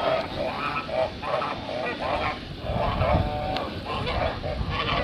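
Several geese honking, many short calls overlapping one another in quick succession.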